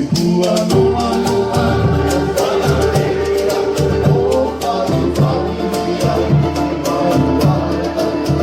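Background music: a song with a singing voice over a steady, rhythmic percussion beat.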